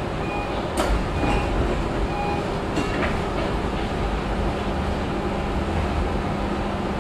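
Interurban tram running along street track, heard from the driver's cab: a steady rumble with a few sharp wheel-on-rail clicks about a second in and again around three seconds. A short electronic beep repeats through the first couple of seconds, and a steady hum sets in after that.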